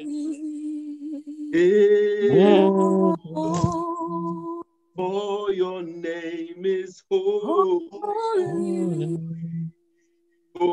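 A man singing a slow worship song with long held, sliding notes, heard through a video-call link. The sound cuts out completely three times for a moment, the last dropout near the end.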